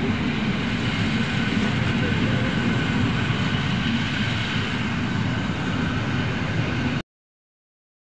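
Vintage FS type 45000 passenger carriages of a passing train rolling by at speed, a steady, loud noise of wheels on rails. It cuts off suddenly about seven seconds in, leaving dead silence.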